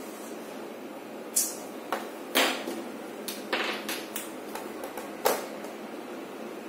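A long ruler knocking against a whiteboard and a marker drawing along it: a scattering of sharp knocks and short scrapes over a faint steady hiss, the loudest about a second and a half in, at two and a half seconds, and again just after five seconds.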